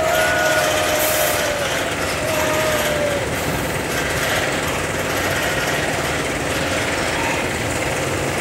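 Steel roller coaster's lift-hill chain clattering steadily as it hauls a car up the lift hill, with a few brief whines in the first three seconds.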